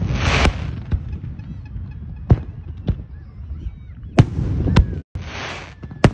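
Fireworks display: about six sharp bangs of shells bursting, with spells of dense crackling at the start and again near the end, over a continuous low rumble.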